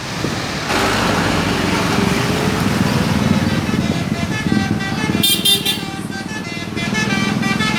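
Indonesian bus 'telolet' horns: a multi-note horn playing a rapid run of short notes that jump in pitch, starting about three and a half seconds in, over the noise of bus engines.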